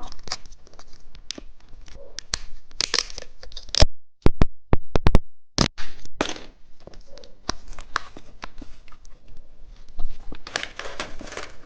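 Plastic candy wrapper crinkling and being torn open, with irregular crackles and sharp clicks. Around four to five seconds in it goes nearly quiet except for a few sharp clicks, then the crinkling resumes.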